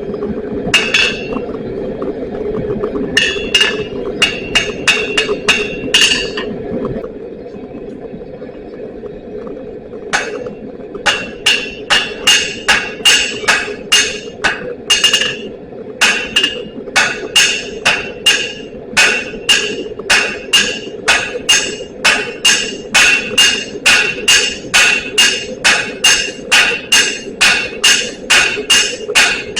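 Hand hammer blows on steel on an anvil, each strike ringing brightly. A few short runs of blows come in the first six seconds, then a steady run of about two blows a second from about ten seconds in. A steady hum runs underneath.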